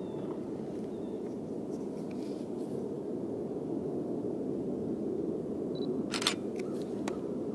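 Steady rumble of an Amtrak passenger train rolling past, with a few sharp clicks about six and seven seconds in.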